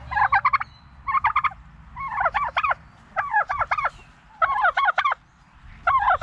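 Domestic tom turkeys gobbling: about six short, rapid rattling gobbles, one roughly every second.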